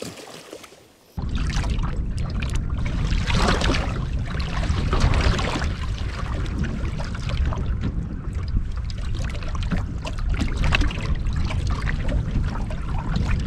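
Faint splashing of a fish being released at the side of a boat. About a second in, this gives way abruptly to steady, loud wind buffeting the microphone, with choppy water lapping against the boat's hull.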